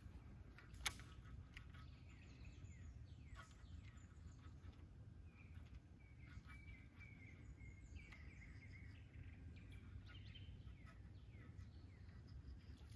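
Near-quiet outdoor ambience: faint scattered bird chirps over a low steady rumble, with one sharp click about a second in.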